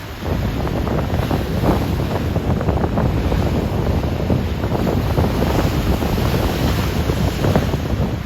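Choppy ocean waves churning and breaking, a continuous rumbling wash with a dense crackle of spray, with wind on the microphone.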